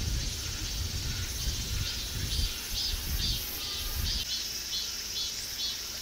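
An insect calling in a rhythmic run of high pulses, about two a second, starting about a second and a half in. Under it is a low rumble that stops about four seconds in.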